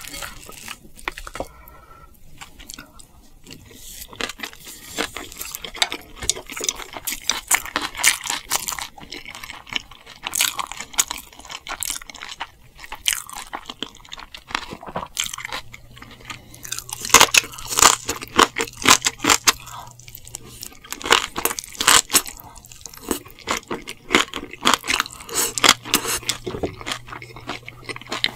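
Close-miked chewing with crisp crunching of food: a dense, continuous run of short wet crunches and clicks, busiest in the second half.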